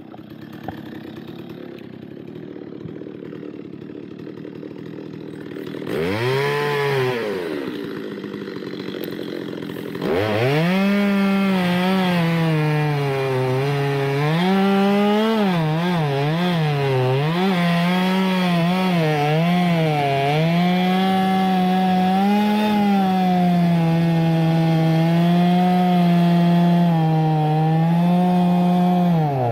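Stihl 023 two-stroke chainsaw idling faintly at first. About six seconds in it is revved up and falls back once. From about ten seconds in it runs at high speed, its pitch dipping and recovering as it cuts into a spruce log.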